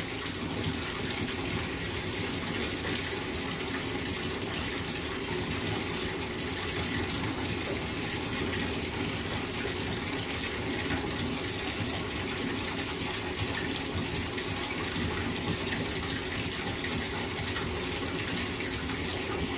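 Bathtub tap running steadily, water pouring into a tub that is beginning to fill.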